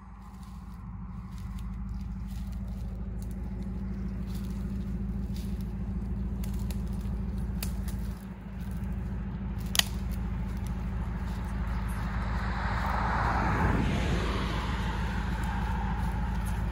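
A vehicle engine idling with a steady low hum, and footsteps rustling through dry brush and grass, growing louder in the last few seconds as they approach. A single sharp click near the middle.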